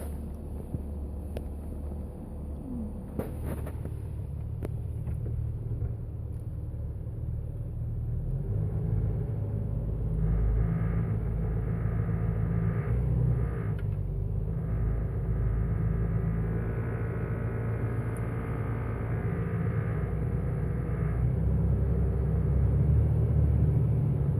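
Jeep Wrangler TJ running at low rpm, a steady low rumble that grows louder about a third of the way in. A higher buzzing band comes and goes over it from about ten seconds in: the low-rpm buzz the owner is chasing.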